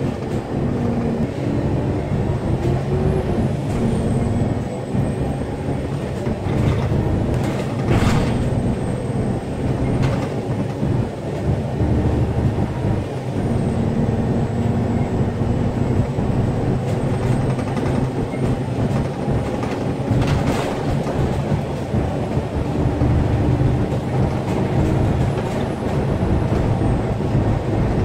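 Steady low rumble of a moving vehicle heard from inside, with a faint high whine above it and a few short knocks or bumps along the way.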